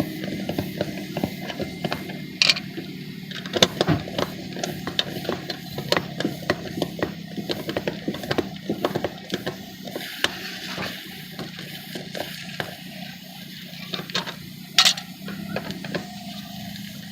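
Irregular clicks and scraping of a tool working a 3-inch self-tapping sheet-metal screw out of a car tire, with a sharper click near the end.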